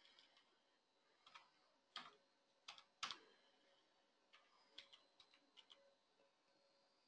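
Faint computer keyboard keystrokes, a dozen or so separate clicks at uneven intervals, the loudest about two and three seconds in.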